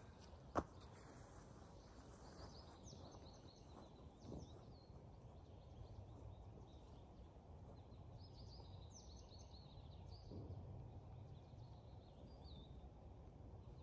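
Faint outdoor ambience: a low wind rumble on the microphone with scattered small bird chirps. One sharp click about half a second in.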